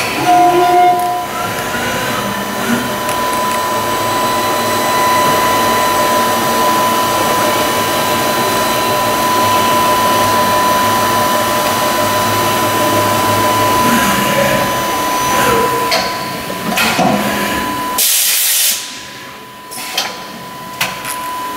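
Cincinnati Arrow 500 CNC vertical machining centre running, a steady high whine over a hiss as its axes traverse. The hiss cuts off sharply about three-quarters of the way through, and a few knocks follow as the tool-change carousel swings in.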